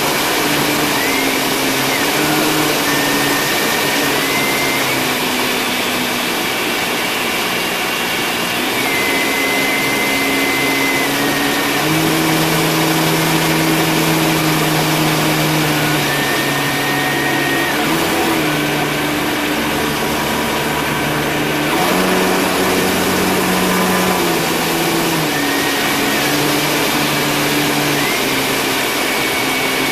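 Engine of a remotely piloted Piper Pawnee running steadily in flight, heard from inside the cockpit over constant wind and propeller rush. Its note steps up and down several times as the power changes.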